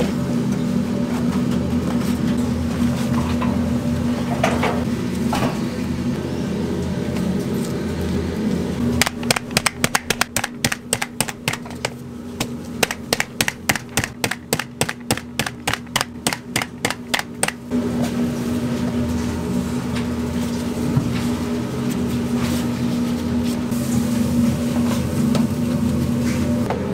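A steady mechanical hum, with a run of quick, even knocks, about four a second, starting about nine seconds in and lasting some nine seconds.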